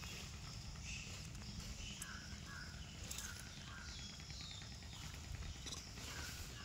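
Outdoor ambience: small birds chirping in short, scattered notes over a low steady rumble.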